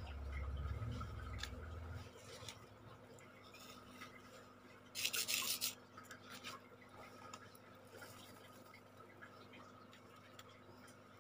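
Faint handling noises of a sand-painting board and its sand pots: light rubbing and scratching, with a low rumble in the first two seconds and a short rasping burst about five seconds in.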